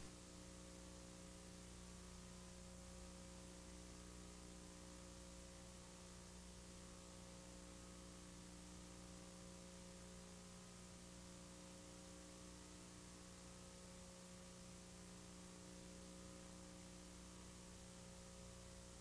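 Near silence: a faint, steady electrical hum with a thin hiss.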